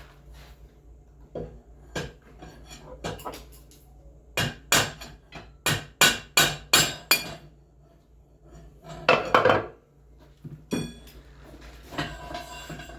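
Hammer blows on metal during work on a treadmill roller's bearings: a few scattered knocks, then a quick run of about eight sharp strikes in the middle, more blows after, and a ringing metallic clink near the end.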